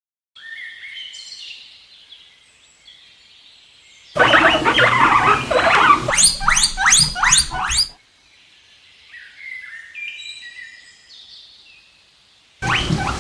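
Guinea pig squealing in two loud spells, each a quick run of rising high squeaks, with fainter high chirping between them.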